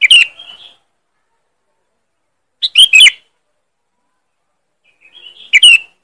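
Sooty-headed bulbul (kutilang) calling: three short, loud, sharp phrases, about two and a half seconds apart.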